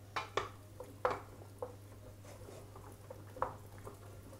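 A utensil stirring cooked tube pasta coated in béchamel sauce in a stainless steel pot: irregular wet squishes and light knocks against the pot, the loudest just after the start, about a second in and about three and a half seconds in.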